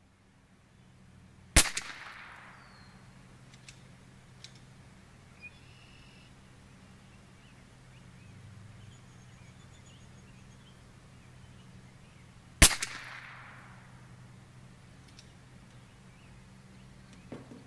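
Two .22 LR shots from a Bergara B14R bolt-action rimfire rifle, about eleven seconds apart, each a sharp crack with a short echo trailing off. Faint bird chirps come in between.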